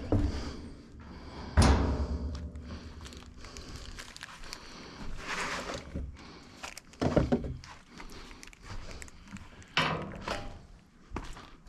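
Scattered knocks and thunks of metal parts being handled and set down during assembly of a wheeled fuel caddy, the loudest about one and a half seconds in, with more near the middle and end and quieter rustling between.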